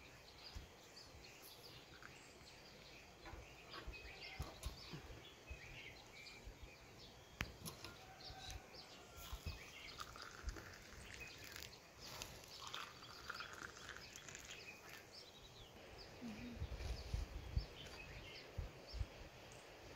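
Faint outdoor ambience with scattered small bird chirps. About halfway through, tea is poured from an aluminium kettle into a glass cup, and near the end there is a low rumbling.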